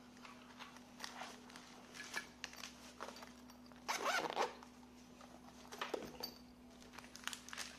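A zipper being pulled in a few short noisy strokes, the longest about four seconds in, with small handling clicks between.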